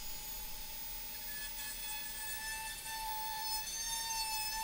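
Dremel rotary tool with a grinding bit running at high speed, a steady high whine that gets a little louder and higher in the second half as the bit carves plastic out of a PCIe slot.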